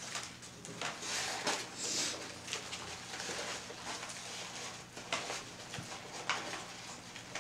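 Newspaper wrapping rustling and crinkling as a plant cutting is unwrapped by hand, in irregular crackly handfuls, over a faint steady low hum.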